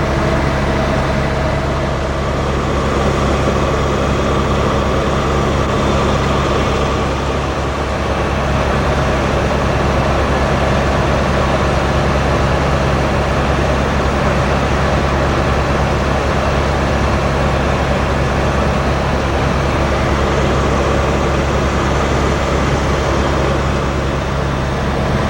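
Helicopter running steadily: a loud, even drone with a steady low hum and no break.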